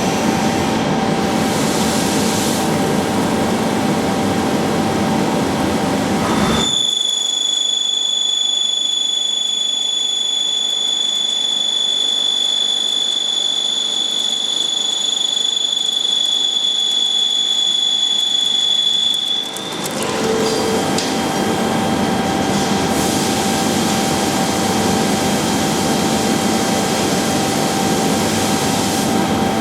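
Leadwell V-60iT five-axis CNC machining centre running with a steady mechanical din. For about thirteen seconds in the middle the low rumble drops away and a steady high-pitched whine holds, then the full din returns.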